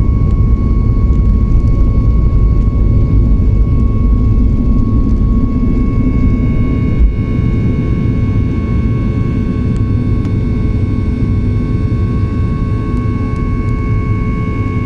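Inside the cabin of a Boeing 737 MAX 8 in flight: the steady rumble of its CFM LEAP-1B engines and airflow, with a steady whine over it. A single knock about seven seconds in, and the noise eases slightly after about five seconds.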